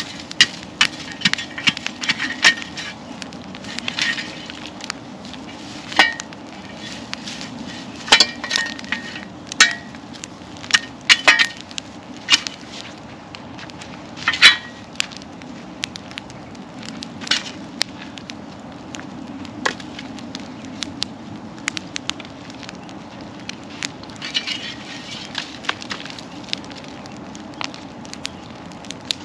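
Large log-and-brush bonfire crackling and popping, with sharp snaps scattered throughout, most frequent in the first half.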